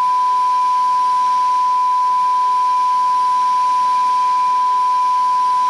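A steady, unbroken pure beep tone held for more than five seconds: an editing bleep laid over the aircraft crew's intercom audio to blank out what was said.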